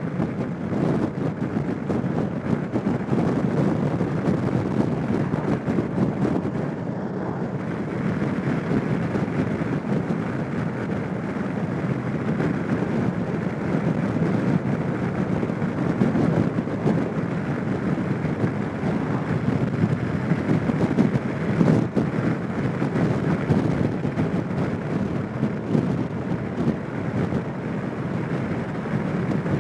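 Steady wind rush over the microphone mixed with road and engine noise from a Suzuki Burgman 650 maxi-scooter on the move.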